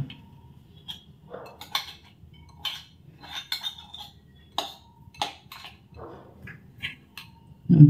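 A spoon clinking and scraping against small glass bowls as wet cassava starch is scooped out, in a scattered series of light clinks, some ringing briefly.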